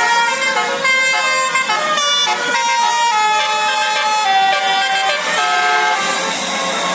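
Bus basuri telolet horn playing a tune: a run of held horn notes stepping from pitch to pitch, ending about six seconds in.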